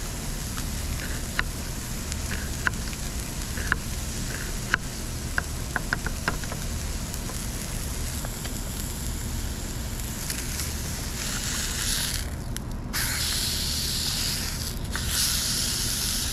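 A knife blade clicking against a wooden cutting board as an onion is sliced, about a dozen sharp taps with a quick run near the middle. Then a hamburger patty sizzles in a small camp frying pan, loudest in the last few seconds.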